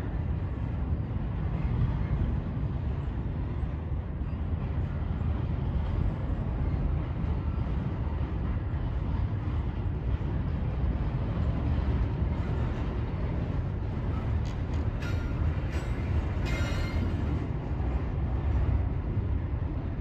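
Double-stack intermodal freight cars rolling slowly across a steel deck bridge, making a steady low rumble of wheels on rail. A few brief, sharper metallic sounds come through about three quarters of the way in.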